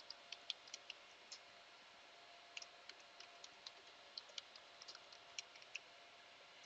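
Faint, irregular clicks of computer keys being typed, in small runs with pauses, over a faint steady hum.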